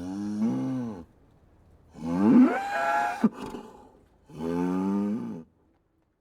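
A cow mooing three times, each moo lasting about a second. The middle moo is the loudest and longest, and it rises in pitch as it begins.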